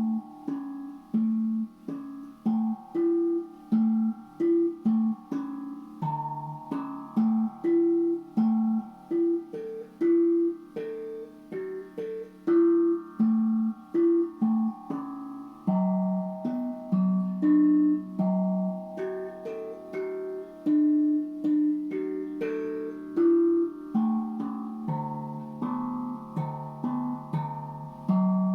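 Steel tank drum played as a slow melody: single notes struck at an even pace, about two a second, each ringing on with a bell-like tone.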